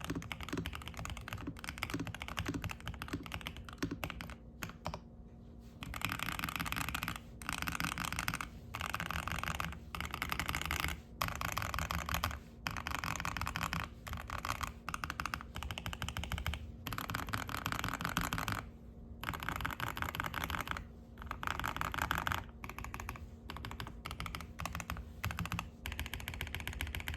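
Typing on a Zuoya GMK67 mechanical keyboard with stock DK Roastery Iced Latte switches, a polycarbonate plate, a tape-modded plastic case and ABS keycaps, on a desk mat. The keystrokes come in runs a second or two long, with short pauses between them.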